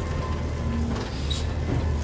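Automated side-loader garbage truck's engine running with a steady low hum as the truck creeps up beside the curbside carts.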